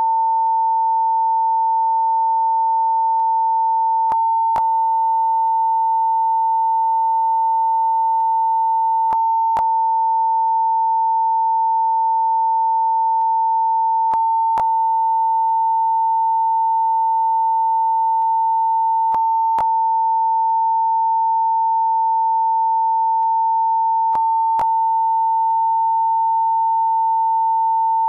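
Censor beep: one unbroken, steady pure tone at a constant level, with faint paired clicks about every five seconds.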